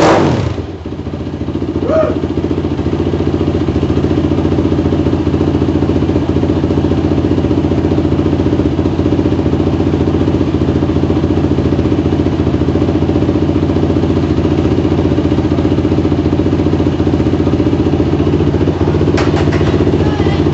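Freshly rebuilt Yamaha WR450 single-cylinder four-stroke dirt bike engine idling steadily through a homemade muffler, after a rev falls away in the first second.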